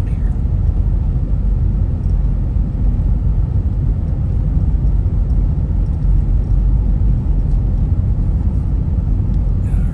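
Car driving along a road, heard from inside the car: a steady low rumble of engine and road noise.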